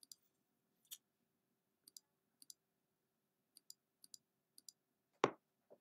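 Computer mouse clicks, sharp and scattered, mostly in quick pairs, about eight groups in all, with a louder single knock about five seconds in.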